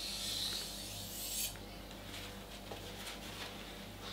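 Global kitchen knife's steel blade grinding across a whetstone: a steady rasping hiss that stops about a second and a half in. Faint rustles and light clicks follow.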